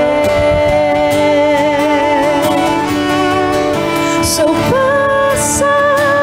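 Music from a live song performance. Held notes with some vibrato play through the opening seconds, then a woman's voice comes back in singing about four seconds in.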